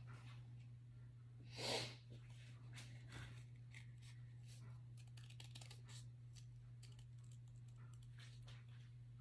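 Scissors cutting cardstock, heard as faint scattered snips and paper rustles, with one louder rustle of the card a little under two seconds in.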